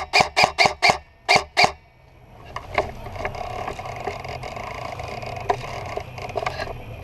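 An airsoft gun firing a rapid string of shots, about five in the first second, then two more after a short pause. After that comes a steady scraping and rustling with occasional small clicks.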